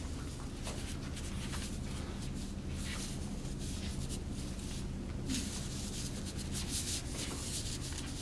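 Nearly dry Chinese calligraphy brush scratching and rubbing across paper in a run of strokes, the scratching stronger in the second half, over a steady low hum.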